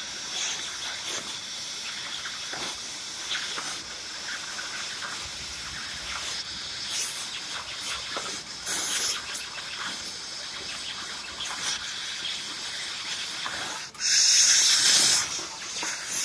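Laser cutting machine cutting 1 mm stainless steel sheet: a steady hiss of assist gas at the cutting head with irregular crackles and ticks, and a louder hiss for about a second and a half near the end.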